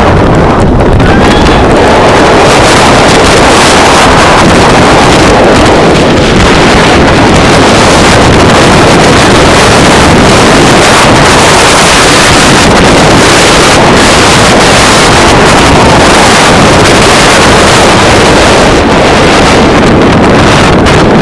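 Wind rushing over the microphone of a rider-worn camera on a giga roller coaster at speed. It is very loud and steady, near the recording's limit throughout.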